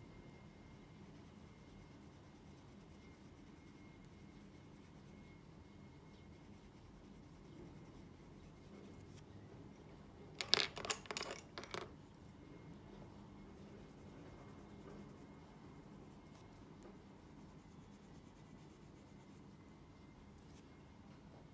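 Faint scratching of a graphite pencil shading on textured watercolour paper. A little past halfway comes a quick cluster of sharp clicks and taps, as one pencil is set down and another picked up.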